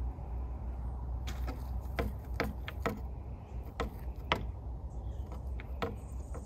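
A cat digging in loose soil and mulch with its front paws: a run of irregular sharp scratches and clicks, most of them between about one and six seconds in, over a low steady rumble.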